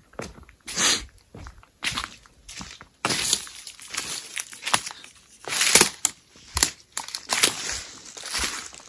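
Footsteps crunching and crackling over dry debris, in an uneven, irregular stride.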